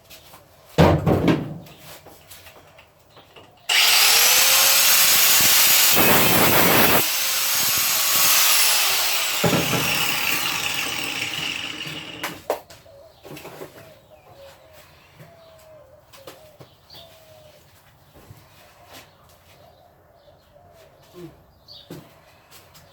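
A loud thump about a second in, then an angle grinder starts, its whine rising as it spins up. It runs loudly for about five seconds and winds down with a falling whine after it is switched off. Light knocks and handling noises follow.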